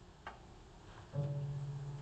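A low musical note starts about a second in and is held steadily, with a soft click shortly before it.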